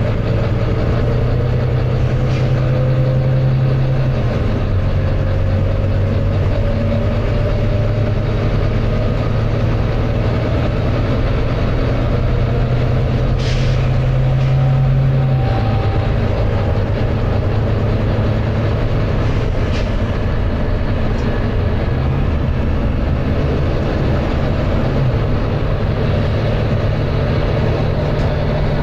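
Volvo B9TL bus's six-cylinder diesel engine working hard under load, heard on board, its low note stepping down twice, about four seconds and about fifteen seconds in. Short bursts of air hiss cut in now and then, the clearest about halfway through.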